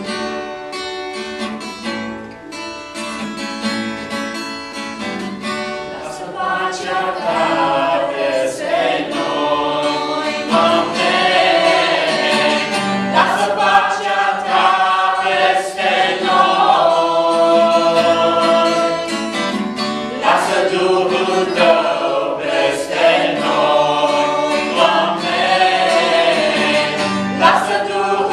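Congregational worship song: an acoustic guitar strummed in a steady rhythm, then a small group of voices singing together in unison comes in about six seconds in, and the music grows louder.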